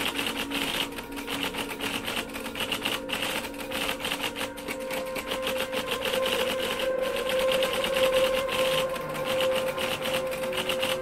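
Typewriter sound effect: rapid, unbroken key clicks. Under them, background music holds a steady note that grows louder in the second half.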